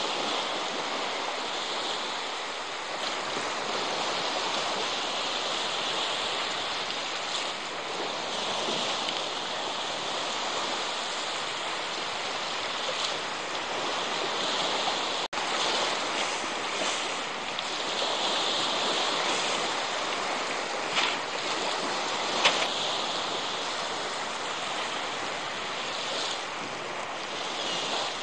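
Baltic Sea surf washing onto a sandy shore, a steady rush mixed with wind, with two short knocks a second or so apart near the end.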